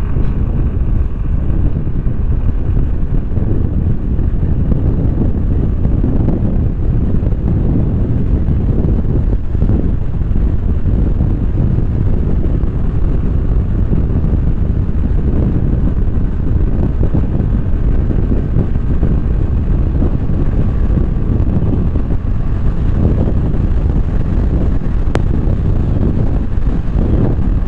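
Steady, heavy wind noise on the microphone of a Suzuki Burgman Street 125 scooter held at full throttle on a top-speed run, with the scooter's engine and road noise underneath.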